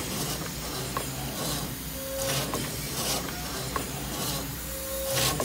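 The engine of a 1919 50-ton railway steam crane running on compressed air instead of steam. Exhaust air comes in puffs of hiss roughly once a second, with light mechanical clicks from the working parts.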